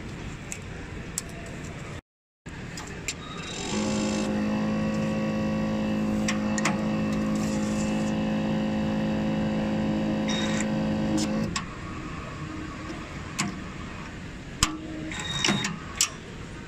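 Automatic SMT carrier-tape splicing machine at work, its mechanism giving scattered sharp clicks. A steady motor hum of one pitch starts about four seconds in and stops cleanly about eight seconds later.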